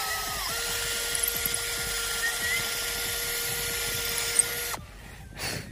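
Electric drill boring a hole in wood, running at full speed. The motor's whine steps up in pitch within the first half second, holds steady, and cuts off suddenly near the end.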